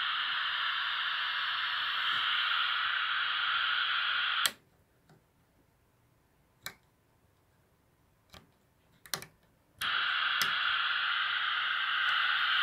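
Open FM receiver hiss from a PRC-77 military radio tuned to 42.00 MHz. The hiss cuts off abruptly about a third of the way in, leaving a few clicks, and comes back just as suddenly about five seconds later.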